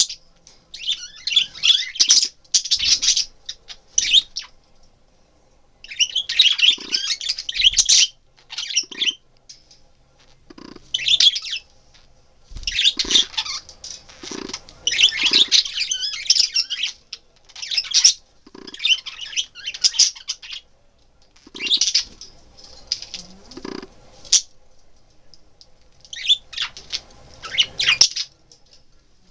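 Pet budgerigars chattering and squawking in harsh bursts of a second or two, with short pauses between, the excited, aggressive chatter of budgies squabbling.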